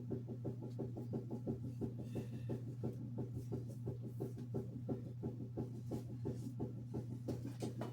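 A strip of cloth loaded with metal polish being worked back and forth around a crankshaft journal, rubbing in an even rhythm of about four to five strokes a second, over a steady low hum.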